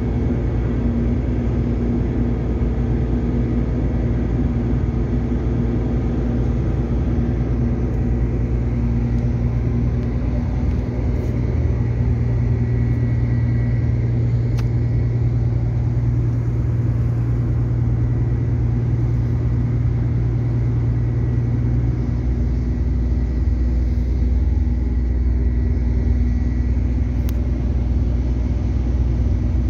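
Ship diesel engines running with a steady low rumble and hum. The hum's pitch shifts about twenty-two seconds in.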